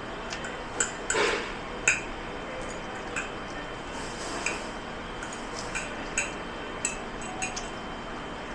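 Dishes and cutlery clinking as they are handled: about a dozen short, sharp, ringing clinks spread irregularly through, with a brief hissing scrape a little over a second in, over a steady hiss.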